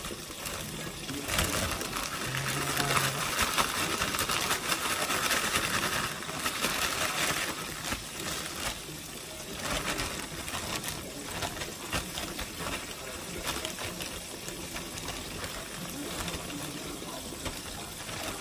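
White snapper fillets sizzling and crackling in hot oil in a cast-iron skillet, with a plastic zip-top bag rustling as a fillet is shaken in flour, loudest from about one to seven seconds in.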